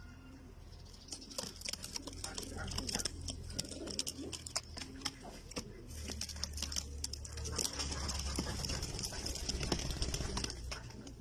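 A flock of French meat pigeons in their loft: soft low cooing with many sharp clicks and scuffles throughout, over a low rumble in the second half.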